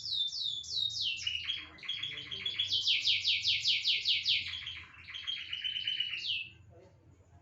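Canary in full song: fast trills of repeated down-sweeping notes, the phrases changing pitch and speed, with the song stopping about six and a half seconds in.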